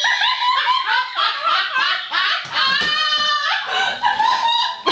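High-pitched laughter: rapid giggling that rises into a longer squeal about three seconds in.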